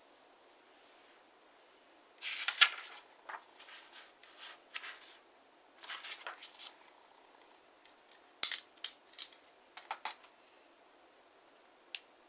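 A square sheet of TANT origami paper being handled and folded by hand: several short bursts of papery rustling and crinkling, then a run of short sharp ticks and taps from the paper a little past the middle.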